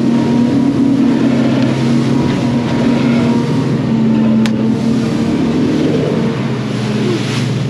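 A charter fishing boat's engine running steadily under way, a low hum with water rushing along the hull. A single sharp click comes about four and a half seconds in.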